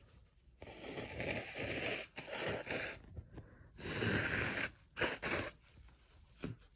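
A man's heavy, rough breaths and sniffs through an irritated nose during a sneezing fit set off by chhinkni snuff: four noisy breaths, the first the longest, then a short sniff near the end.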